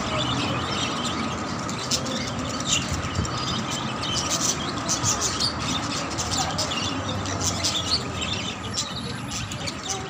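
A flock of caged budgerigars chattering, with many short, high chirps over a steady background hum.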